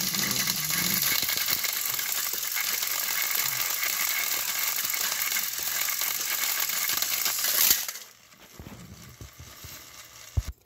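Two battery-powered toy train engines pushing head to head on plastic track, their motors running and wheels slipping with a dense crackling rattle. A little before eight seconds in, one is knocked off the track with a clatter and the noise drops away, and a single knock comes near the end.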